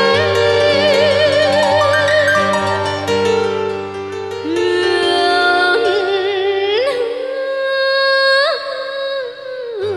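A woman sings with a wavering vibrato into a microphone over a backing music track. The low bass line drops out a little under halfway through, leaving the voice over the higher instruments, and comes back near the end.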